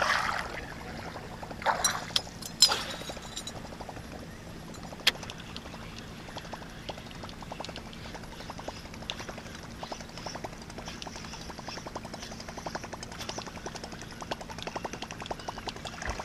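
Casting reel being cranked during a lure retrieve: a fast run of small clicks from about the middle on. A few sharp knocks and clacks come in the first three seconds, and one more a couple of seconds later.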